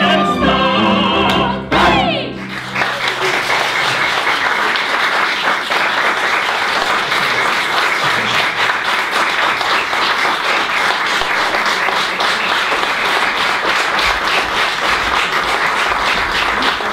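An operetta trio of voices with string orchestra and piano ends on a final chord, cut off about two seconds in, and the audience breaks into steady applause for the rest of the time.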